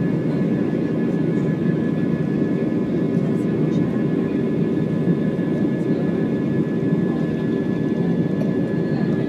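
Airbus A320 cabin noise during the climb after takeoff: a steady rush of jet engine and airflow noise, with a thin steady whine above it.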